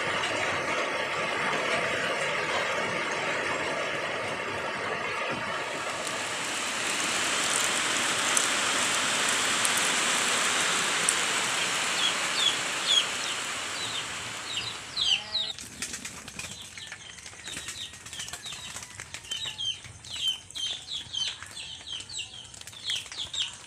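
Steady rain falling on leaves and roofing. About fifteen seconds in it drops to a lighter patter and drip, with small birds chirping repeatedly.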